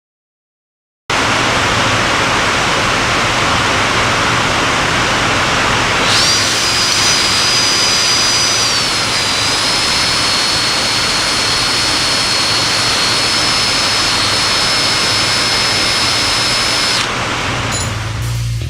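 Aerosol carburetor cleaner spraying in a loud, steady hiss. A high whistle joins about six seconds in, dips slightly in pitch, and both stop shortly before the end.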